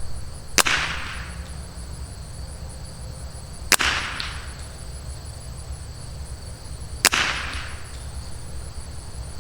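Three single shots from a Rim-X .22LR bolt-action rifle, about three seconds apart, each a sharp crack with a short echo. Insects chirp steadily behind.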